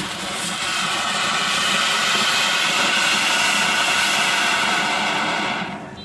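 Small ground fountain firework hissing steadily as it sprays sparks, then dying down near the end as it burns out.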